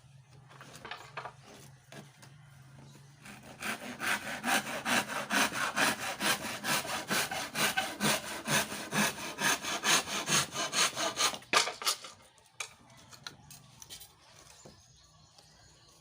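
Handsaw cutting through lawaan hardwood in quick, even strokes, about three a second, for about eight seconds before stopping.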